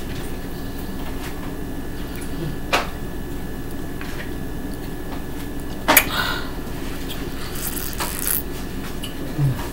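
Someone drinking water from a large plastic mug: soft sips and swallows with a few sharp clicks of the plastic, the loudest about six seconds in, over a steady background hum.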